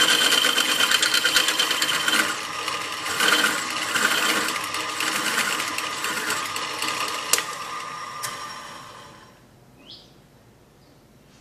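Bench drill press running and drilling into a metal piece, a dense whirring, grinding noise with a fine fast rhythm. Two sharp clicks come late on, then the noise dies away over about a second and a half, at around nine seconds in.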